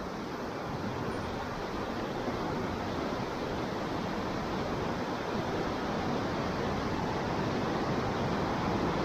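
A steady rushing noise that grows slowly louder.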